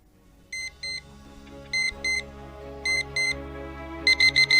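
Digital alarm clock beeping in high-pitched double beeps about every second and a quarter, switching to a quick run of four beeps near the end. Soft background music fades in beneath it.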